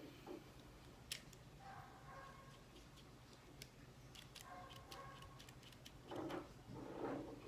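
Faint scattered clicks and light handling noises, with two short soft rustles near the end.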